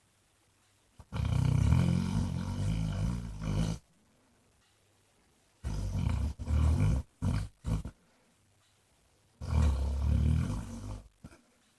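Basset hound snoring loudly in his sleep: three long snores a few seconds apart, the middle one broken into several short snorts.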